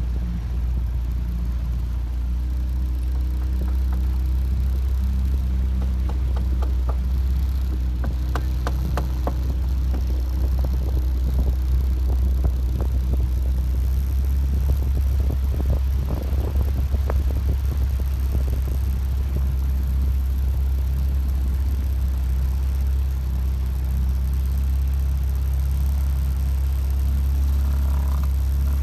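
A motorboat's engine running steadily under way, a loud, even low drone. A scatter of short knocks and clicks comes through it midway.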